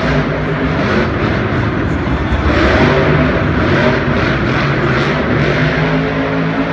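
Monster truck engine running loud, swelling as it revs up about two and a half seconds in.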